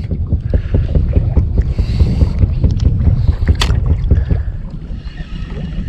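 Small fishing boat swinging around on the water: a loud, uneven low rumble of water and wind against the hull and microphone, with a single sharp click about three and a half seconds in.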